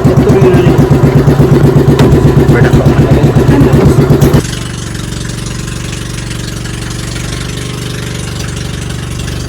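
Boat engine running loud with a rapid, even chugging pulse. About four seconds in it drops suddenly to a quieter, steadier drone.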